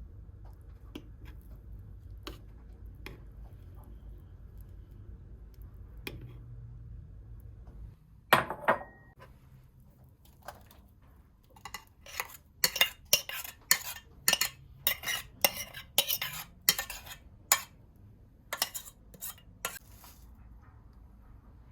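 Metal spoon clinking against a dish: a few light taps, a loud clatter about eight seconds in, then a quick run of sharp clinks, two or three a second, as if stirring, that stops near the end.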